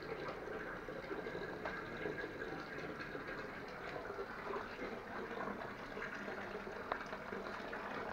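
Thermal spring water running steadily from a spout and splashing into a stone basin.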